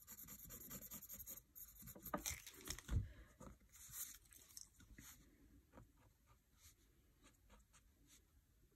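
Faint scratching of a pen drawing short strokes on notebook paper, with a soft thump about three seconds in; the strokes thin out to a few light ticks near the end.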